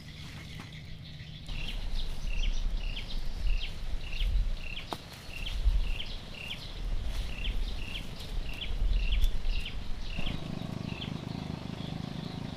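A bird chirping over and over, about two short calls a second, over a low rumble that eases off near the end.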